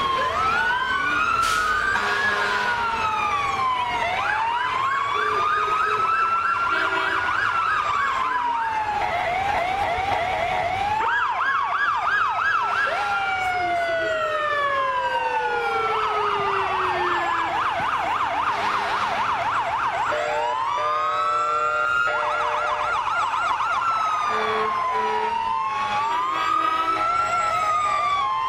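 Several fire truck sirens sounding at once, overlapping slow rising-and-falling wails with fast repeated yelps, switching between the two patterns every few seconds.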